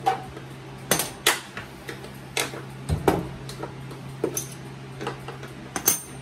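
Steel spring clips on the seam of a washing machine's plastic outer tub being pried off with a flathead screwdriver: about ten sharp metallic clicks and clinks at irregular intervals.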